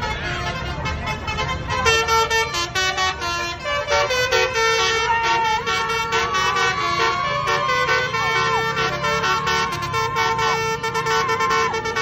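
Bus basuri musical horn playing a melody of quick stepped notes, the kind of tune-playing telolet horn that crowds gather to hear. People's voices are heard under it.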